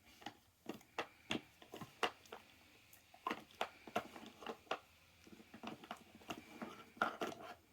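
A dog nosing and pawing at a treat puzzle toy, its parts giving irregular light clicks and knocks, about two or three a second.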